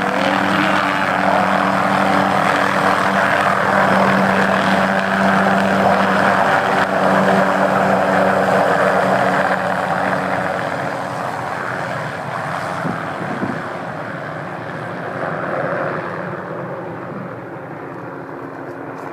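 Private helicopter running with its engine and rotor at full power, holding steady for about ten seconds and then fading away gradually.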